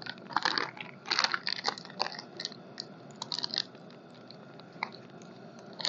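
Surf Excel washing powder being tipped from its packet into a bowl: a string of short, irregular, grainy rustles for about three and a half seconds, then a few faint ticks.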